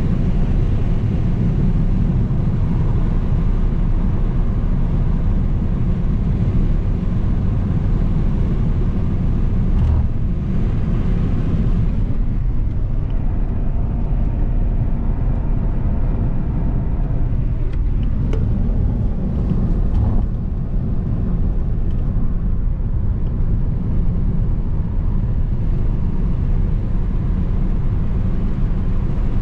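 Car driving along: a steady low rumble of road and engine noise.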